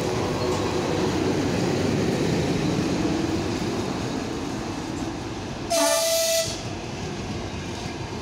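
ChS8 electric locomotive and its passenger coaches rolling past close by, a steady rumble of wheels on the rails. About six seconds in, a short high horn blast sounds for under a second.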